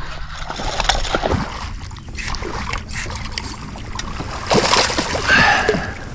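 A hooked bass splashing and thrashing at the water's surface as it is reeled up beside a kayak, with water sloshing. The splashing grows louder about four and a half seconds in as the fish comes alongside.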